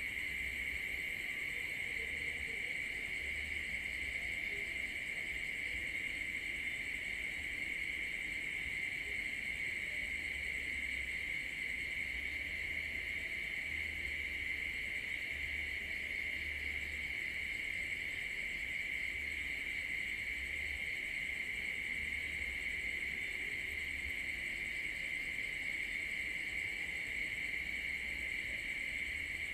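Night insects, likely crickets, chirping in a continuous chorus: a steady, high, unchanging trill.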